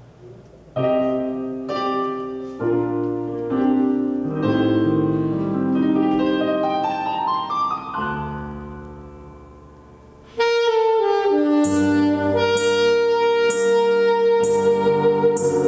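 Jazz saxophone performance with accompaniment. It opens with a run of piano chords that die away, then about ten seconds in the saxophone comes in on a long held note while a cymbal keeps a steady beat.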